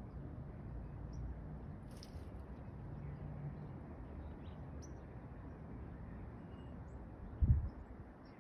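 Faint, short bird chirps scattered over a steady low outdoor rumble, with one brief dull thump on the microphone about seven and a half seconds in.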